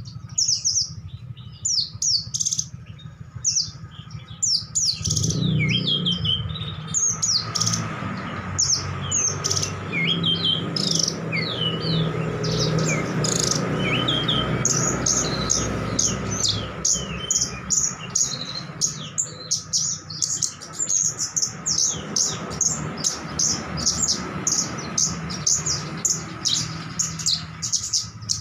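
Birds chirping and tweeting: many short, high chirps and downward-sweeping calls, coming thick and fast in the second half, over a faint steady hum.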